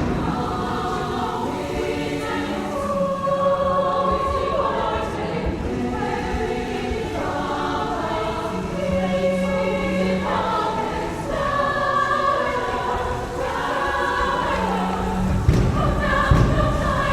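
Choir singing, the voices holding long sustained chords that change every few seconds. A few low thumps come near the end.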